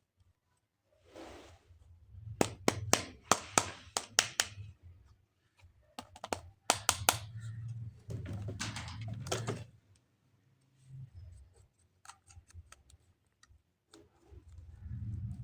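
Plastic toys and packaging being handled up close: clusters of sharp clicks and snaps with rustling between them, then a quieter stretch of faint ticks before the handling picks up again near the end.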